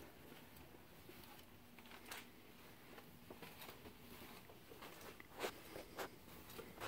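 Near-silent room tone with a few faint soft footsteps on carpet, about two seconds in and twice more near the end.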